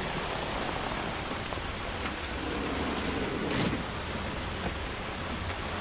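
Steady rain falling on a wet cobbled street, with a few faint footsteps.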